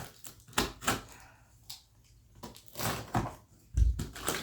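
Cardboard box being unpacked by hand: scattered rustles, scrapes and knocks of cardboard and packing, with one heavy thump near the end.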